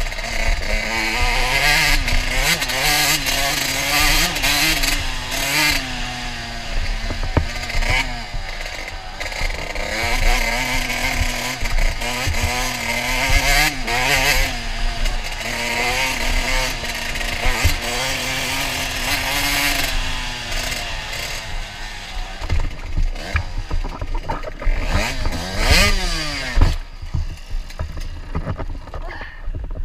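Dirt bike engine revving up and down as the bike rides a rough gravel trail, with rushing noise and knocks from the terrain. Near the end it drops to low revs with a few short blips of throttle.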